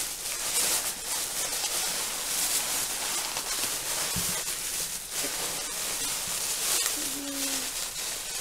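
Packaging rustling as hands dig through a parcel, a continuous uneven rustle with small crackles throughout.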